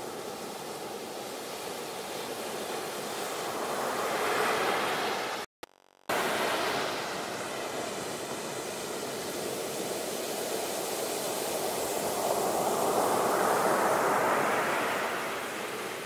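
Sea waves breaking and washing ashore: a steady rush of surf that swells twice, once about four seconds in and again near the end. The sound drops out abruptly for about half a second around five and a half seconds in.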